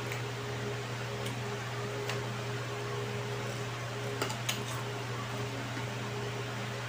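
Electric fan running with a steady low hum and airy hiss, with a few soft clicks about two and four seconds in.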